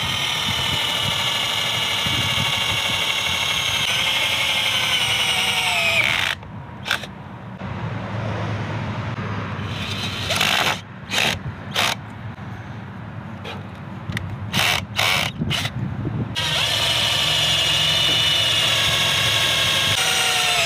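Cordless drill boring a hole through a thick steel winch plate. The motor runs at a steady whine that sags in pitch about six seconds in. It then runs in short stop-start trigger pulses for several seconds, then runs steadily again and slows near the end.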